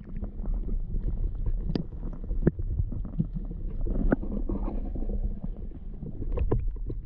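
Muffled underwater rumble of river water heard through a submerged camera, with several sharp knocks and clicks scattered through it.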